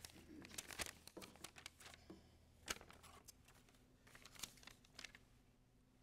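Sheets of paper rustling and crinkling as they are handled close to a lectern microphone, in short, faint, scattered rustles; the loudest comes a little under three seconds in.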